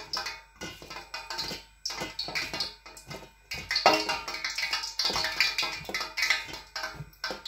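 Music with percussion, made of irregular short strikes with a few pitched passages.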